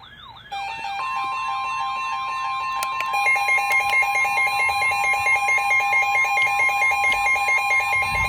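Weather alert radios going off together: a fast warbling siren-like alarm, joined by more repeating beeping alarms about half a second in and again about three seconds in, over the steady single-pitch NOAA Weather Radio warning alarm tone, which starts about a second in. This is the alert for an incoming severe thunderstorm warning.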